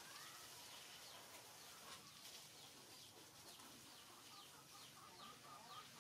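Faint chickens calling: repeated short high falling chirps, with a quick run of clucking notes near the end.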